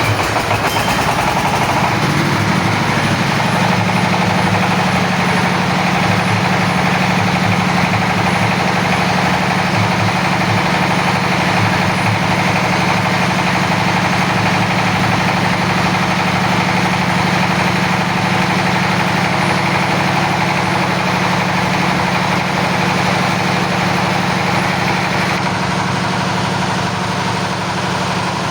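Engine of an oil well drilling machine running steadily at a constant speed; its note shifts and settles about two seconds in.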